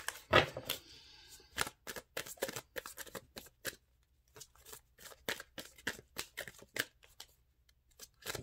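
A deck of Romance Angels oracle cards shuffled by hand: an irregular run of quick card snaps and flicks, loudest in the first second, with short pauses about halfway through and near the end.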